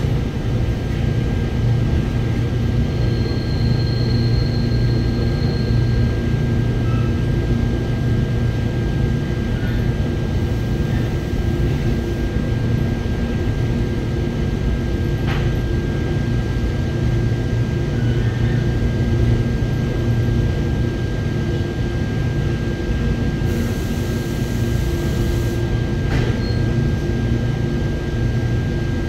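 Seoul Subway Line 4 train heard from inside the car while running: a steady low rumble of the wheels on the track with a constant thin high tone above it. A brief high squeal comes a few seconds in, and two sharp clicks come later.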